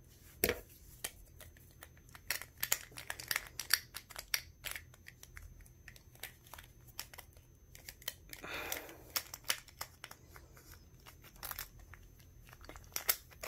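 Irregular small clicks and rattles of a Beyblade Burst top's plastic and metal parts being handled and snapped together.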